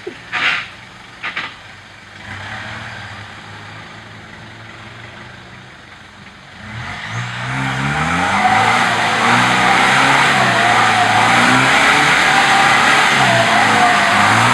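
Off-road 4x4's engine revving up hard under load. Two short bursts of noise come near the start; from about six seconds in the engine note rises and a loud rushing noise joins it and stays loud.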